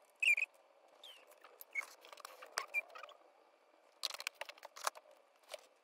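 Red plastic LED mounting plates and their wires being handled and set down on a workbench mat: scattered light clicks, taps and scrapes, with a short squeak about a quarter second in and a quick cluster of clicks near the end.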